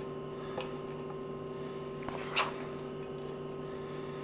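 Steady low electrical hum, with a faint click about half a second in and a short soft tap about two and a half seconds in.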